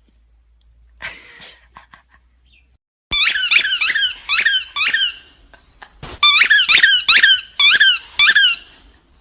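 Two runs of loud, high-pitched squeaks at about three a second, each squeak dropping in pitch, with a short pause between the runs.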